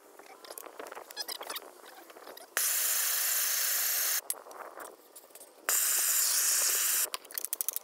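Handheld propane torch burning with a steady hiss, in two bursts of about a second and a half that start and stop abruptly, heating the end of a plastic water pipe to soften it for fitting. Small clicks and handling noises come between the bursts.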